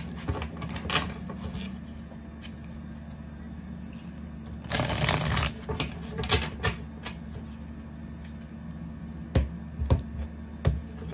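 Tarot cards being shuffled by hand: a quick riffle of the deck about five seconds in, with light flicks of cards around it, then a few sharp taps as cards are laid down on a wooden table near the end.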